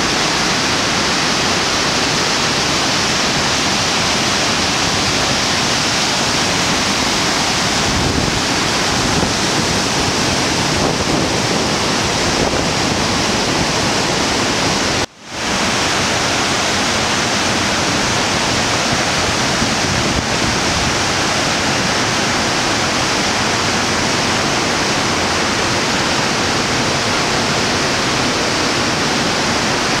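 Steady, full rush of a river in spring flood pouring over a waterfall and through rapids. About halfway through it drops out for a split second and comes straight back.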